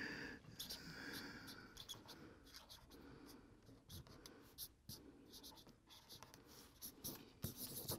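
Faint scratching of a marker pen writing on a cardboard vinyl record sleeve, in short irregular strokes.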